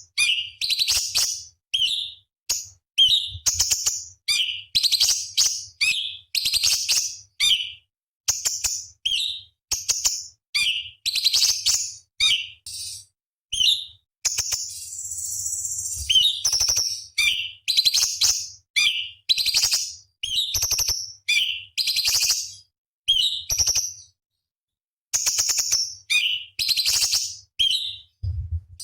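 Cucak cungkok, a small leafbird, singing in quick bursts of sharp, high chirps and whistled notes with short pauses between them. About halfway through, a longer harsh rasping chatter breaks the phrases.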